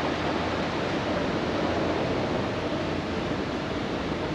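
Steady, even rushing hiss of background noise in a large, nearly empty airport terminal hall.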